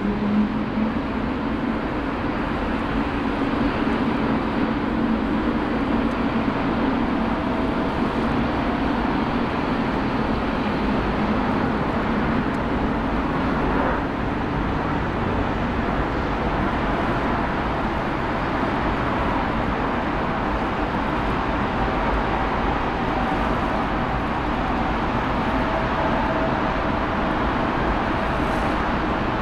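Jet engines of a Boeing 757 freighter on final approach to landing: a steady rush of jet noise with a faint held whine.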